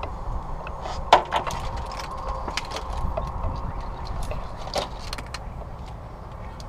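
Plastic wiring-harness connectors and clips being handled, giving several sharp clicks and light rattles, the loudest about a second in, over a steady low rumble.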